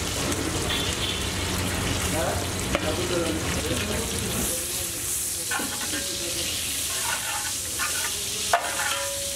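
Sliced onions and green chillies sizzling in hot oil in a large metal biryani pot, stirred with a long-handled flat spatula that scrapes and knocks against the pot's bottom.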